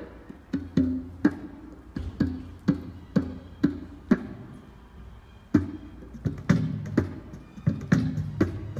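Music accompanying a dance class: sharp percussive beats about two a second over low pitched notes, easing off for about a second in the middle before the beat picks up again.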